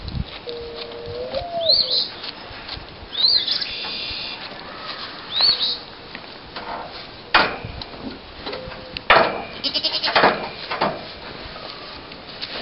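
Pygmy goat bleating a few times up close, the loudest calls in the second half, with short high bird chirps in the first half.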